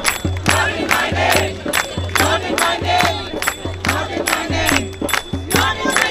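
Crowd of protesters chanting in unison over a steady beat of about two strikes a second.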